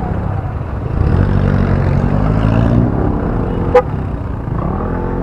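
Motorcycle engine running and accelerating, picked up by a helmet-mounted microphone over a low rumble; its pitch rises about a second in and again near the end. A single sharp click sounds just before the four-second mark.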